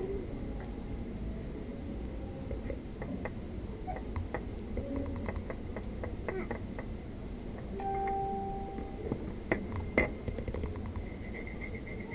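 A small brush scrubbing cleaner over a graphics card's circuit board, with scattered small clicks and ticks. About eight seconds in, a short steady tone sounds for about a second.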